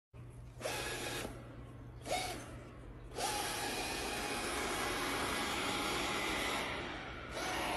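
Robot vacuum cleaner running with a steady whirring hiss. It starts in short spurts with brief rising sweeps as the motor spins up, then runs steadily from about three seconds in.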